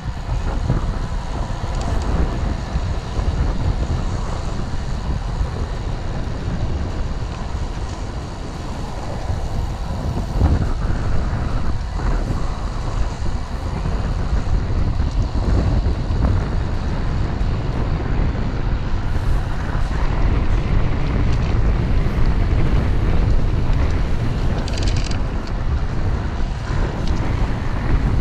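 Wind buffeting the microphone of a camera riding on a moving road bicycle: a steady low rush of air noise that grows somewhat louder in the second half.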